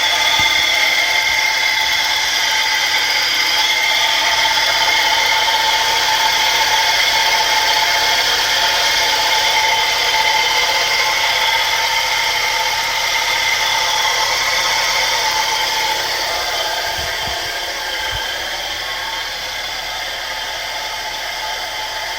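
A steady, high-pitched whine of several shrill tones from a 1984 Mercedes 190E, a noise whose source the owner cannot identify. It eases off slightly in level over the last few seconds.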